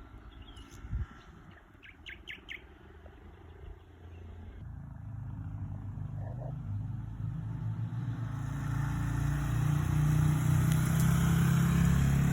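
A motor vehicle's engine approaching, growing steadily louder from about five seconds in. A few short bird chirps sound in the first couple of seconds.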